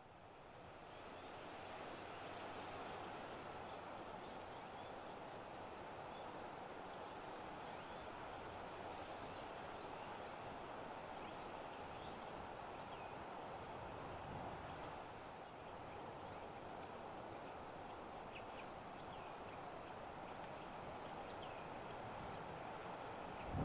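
Small birds calling: short, high chirps over a steady background rush, coming more often near the end.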